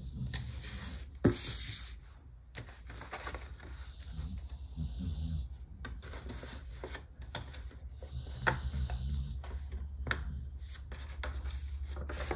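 Paper stickers being handled, peeled and rubbed down onto planner pages: soft rustling and rubbing with small taps, and one sharp click about a second in, over a steady low hum.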